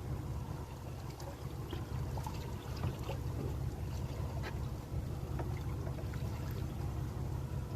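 Water trickling and lapping against a small fishing boat over a steady low rumble, with scattered light clicks.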